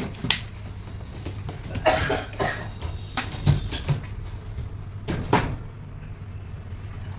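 A few scattered knocks and clatters of PVC ceiling panels and metal channel being handled and fitted, over a steady low hum.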